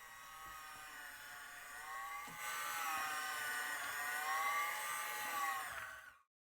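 Electric mixer motor running with a steady whine, its pitch wavering slightly as it beats boiled potatoes into mash; it grows louder about two and a half seconds in and cuts off abruptly near the end.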